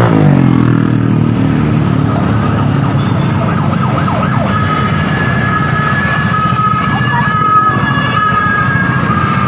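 Over traffic noise, a vehicle engine's pitch drops as it slows at the start; from about five seconds in, the Rahma bus's telolet basuri melody horn sounds in held high notes at a few different pitches.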